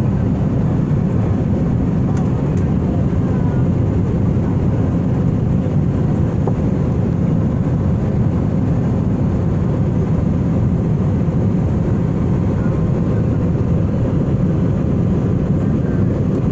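Steady in-flight cabin noise of an Airbus A320-family jet airliner: an even, low rush of engines and airflow heard from a window seat.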